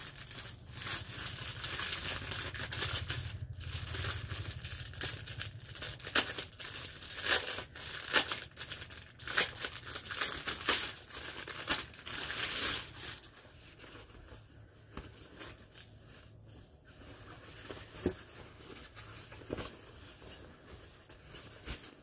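Plastic packaging crinkling and tearing as a bag is torn open and the item pulled out, dense crackly rustling for about the first dozen seconds, then quieter with only occasional small rustles.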